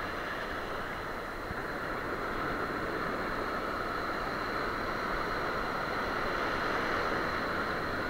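Sea surf washing in over shallow sand: a steady, even rush of breaking and foaming waves that swells slightly a couple of seconds in.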